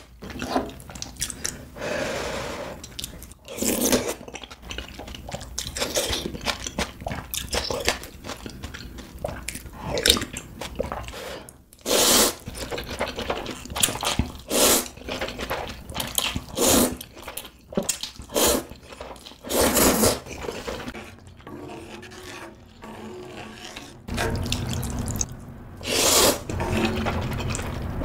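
Ramyeon noodles in spicy broth being slurped, over and over: about a dozen loud, wet slurps of half a second to a second each, with quieter eating sounds between them.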